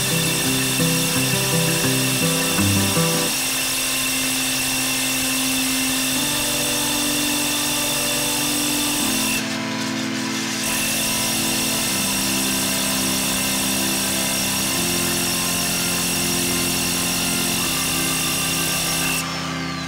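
Bosch SDS-max rotary hammer turning a diamond core bit into a brick wall, its motor running with a steady high whine. The whine breaks off briefly about halfway through and stops just before the end. Background music with long held organ-like chords plays throughout.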